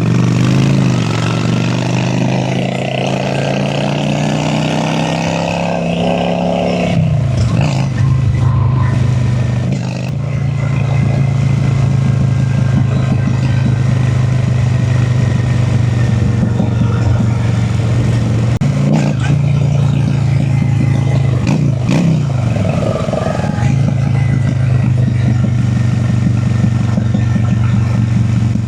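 Honda Shadow V-twin cruiser motorcycle under way: the engine climbs in pitch as it accelerates, drops sharply about seven seconds in with an upshift, then runs steady at cruising speed, with two brief dips in pitch later on.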